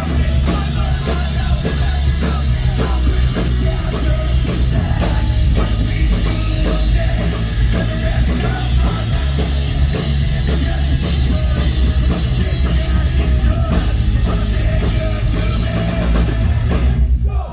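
Punk rock band playing live and loud, with a drum kit and heavy bass under the guitars. The sound cuts out briefly near the end.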